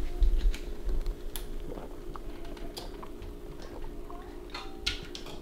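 A man sipping and swallowing beer from a glass held close to the microphone: small scattered clicks and wet mouth sounds, with a few soft thumps near the start and a steady low hum underneath.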